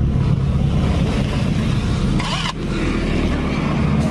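An engine running steadily in the background, a continuous low rumble.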